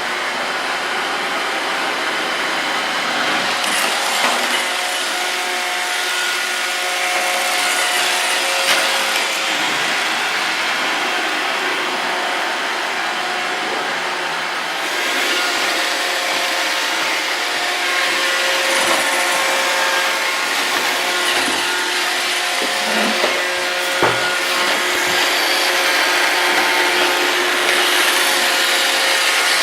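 iRobot Roomba 650 robot vacuum running: a steady whirr of its vacuum and brush motors with the brushes scrubbing the floor, and a few short knocks.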